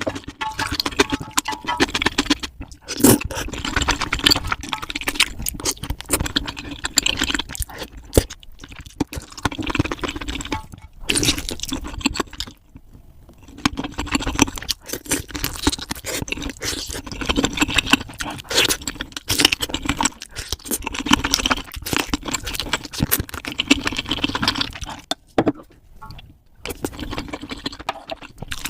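Sped-up eating sounds at 3x speed: rapid crunching and chewing of crispy fried chicken, a dense run of quick crackling clicks and wet smacks with brief pauses.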